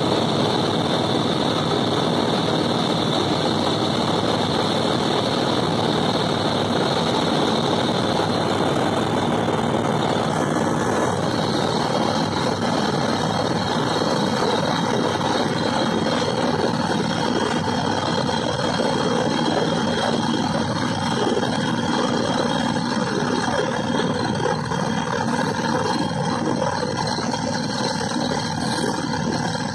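Helicopter in cruise flight heard from inside the cabin: steady engine and rotor noise, unchanging throughout.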